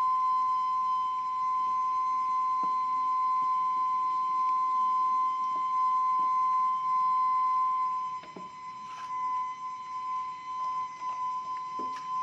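Steam whistle of a kue putu vendor's steamer: one steady, high, flute-like whistle held throughout, a little softer after about eight seconds, with a few light knocks.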